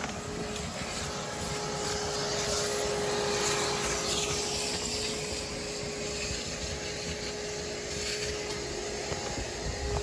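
A machine running steadily: a constant hum under an even rushing noise, with no knocks or changes in speed.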